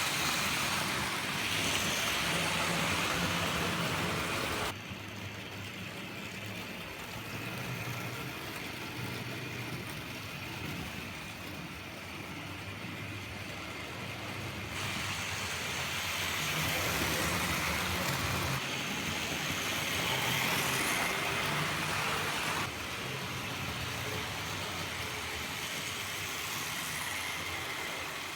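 Tri-ang Hornby model train locomotives running round the track: a steady whirr and rumble of their electric motors and wheels on the rails. The level steps abruptly up and down a few times.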